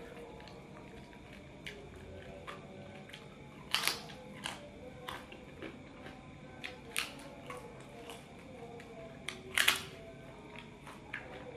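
Eating sounds: scattered crisp clicks and crackles from someone eating by hand, with two louder crunches about four and ten seconds in. Faint steady tones run underneath.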